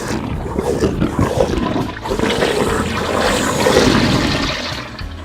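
Toilet flushing: a loud rush of water that builds and then tails off near the end.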